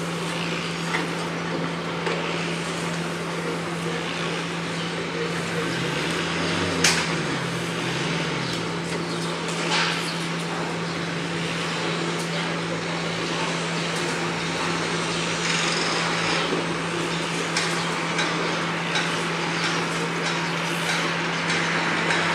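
Construction site noise: a steady machine hum under a general din, with scattered knocks and hammer-like bangs, the sharpest about seven seconds in and another near ten seconds.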